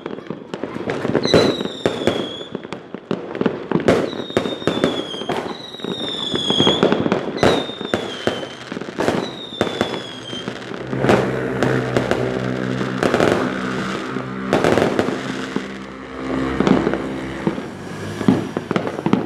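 Whistling 'rudal' (missile) fireworks going off: a string of sharp cracks, about six of them in the first ten seconds followed by a shrill whistle lasting about a second and sliding slightly down. In the second half the cracks go on over a steady low droning hum.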